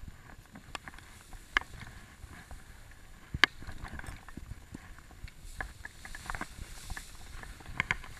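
Tall grass stalks brushing and knocking against a camera carried low through them: irregular light clicks and rustling, a few sharper knocks, over a low wind rumble on the microphone.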